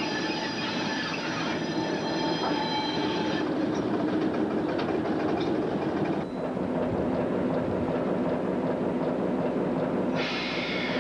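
Railroad wheels squealing as slow-moving cars roll over track: a high, many-toned ringing squeal over a rumble, which breaks off about three and a half seconds in and comes back near the end. In between, a diesel locomotive runs with a steady low drone.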